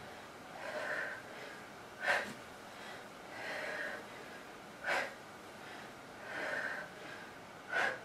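A woman breathing hard from the exertion of push-ups. There are three sharp, forceful exhales about three seconds apart, with softer, slower breaths in between.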